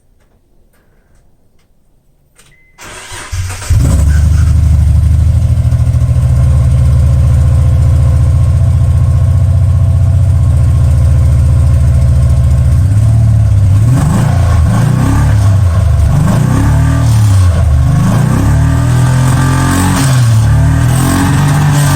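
Mitsubishi 3000GT's V6 cranking and catching about three seconds in, then idling steadily, then revved up and down over and over through the second half. It is running with the rear exhaust section and one muffler removed, so the exhaust is partly open.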